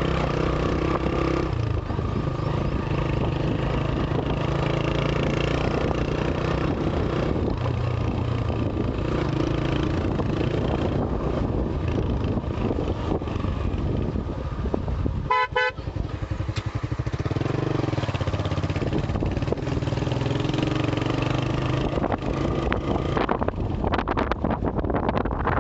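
Honda CB125 motorcycle engine running steadily under way, its pitch shifting a few times with speed. A horn sounds once, briefly, about halfway through, and wind buffets the microphone near the end.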